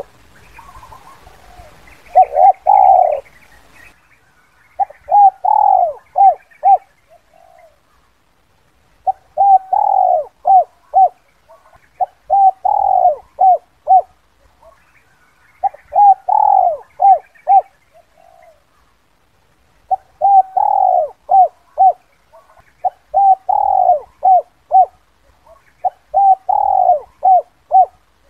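Spotted dove cooing, a lure call for wild doves: a phrase of one longer falling coo followed by three or four short clipped notes, repeated about every three to four seconds, with short gaps between.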